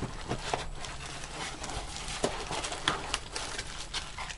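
Anti-static bubble-wrap packaging crinkling and the cardboard box rustling as a graphics card is handled and lifted out, giving an irregular scatter of small crackles and clicks.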